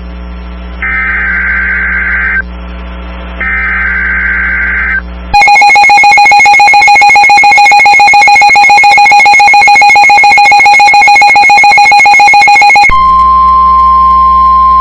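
Weather-radio emergency alert signal. It opens with two short bursts of warbling digital header noise, then about five seconds in a very loud pulsing alarm tone sounds for about seven seconds, and near the end it changes to a single steady warning tone. Together these announce a severe thunderstorm warning.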